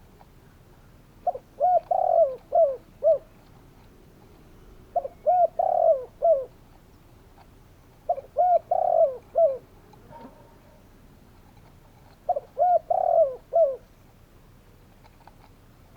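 Spotted dove calling: four cooing phrases a few seconds apart, each a quick run of about five soft, low coos.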